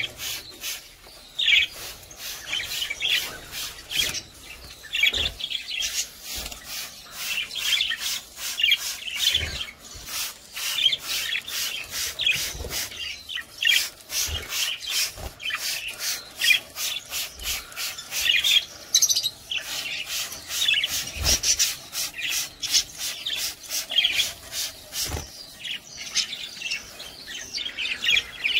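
Trigger spray bottle squirting water in quick repeated bursts, about two or three squirts a second, to bathe caged aviary birds, with the birds chirping throughout.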